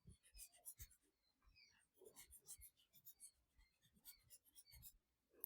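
Faint scratching of handwriting: short strokes of a writing tool on a page, in clusters with a brief pause about a second in, as the maths is written out.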